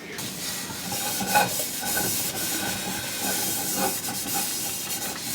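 Water heating to the boil in a pot on the stove, a steady hiss with faint light ticks.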